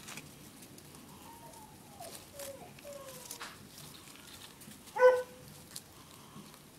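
Paper strips being handled and folded, with faint rustles and clicks. About five seconds in comes one short, high-pitched yelp, the loudest sound here.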